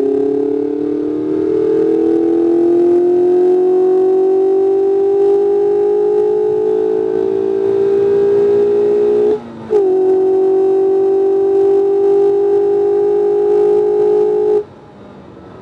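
Mazda MX-5 RF four-cylinder engine pulling hard under throttle on a race track, its pitch rising slowly, with a brief break about nine and a half seconds in before it holds a steady high pitch. The throttle closes abruptly about a second before the end and the engine note falls away sharply.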